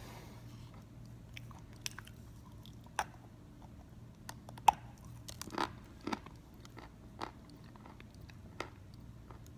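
Teeth biting off and crunching a large chunk of Belgorod natural edible chalk: a series of sharp, separate crunches and snaps, the loudest about halfway through.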